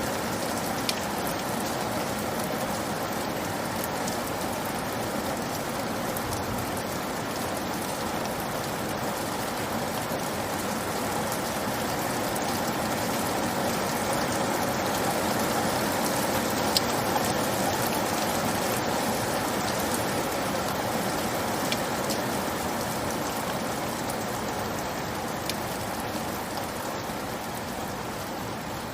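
Steady rain falling, an even hiss with scattered individual drops ticking on a surface; it swells a little in the middle and eases slightly toward the end.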